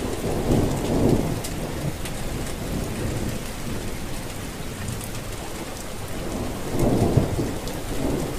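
Steady rain with scattered drop ticks and two low rolls of thunder, one about a second in and one near the end.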